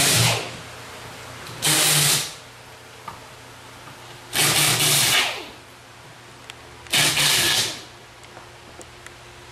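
Cordless drill-driver run in three short bursts, about a second each, taking screws out of the wooden board that closes a subwoofer shipping box.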